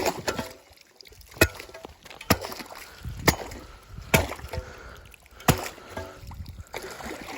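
Ice being chopped open with a hand tool to make a watering hole: about six hard strikes, roughly one a second, each ringing briefly.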